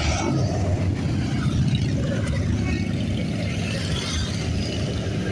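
A line of motorcycles riding past close by at low speed, their engines running with a steady, pulsing rumble.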